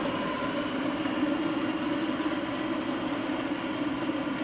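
Standard Modern 1333 gear-head lathe running at a steady low spindle speed: a constant hum and whine from its 3 hp three-phase motor and headstock gearing.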